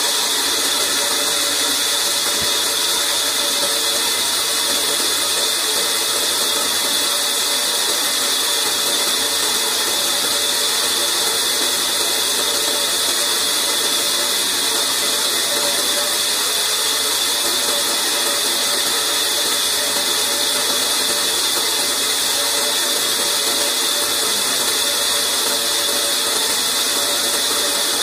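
A large sawmill bandsaw running steadily with an even whir and hiss and no change in load. The blade is turning freely, not cutting.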